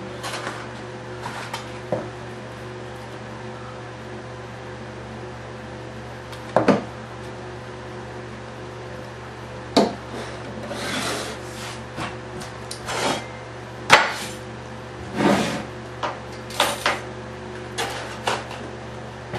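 Scattered knocks, clicks and brief rustling as small objects and tools are picked up and set down on a workbench, over a steady electrical hum.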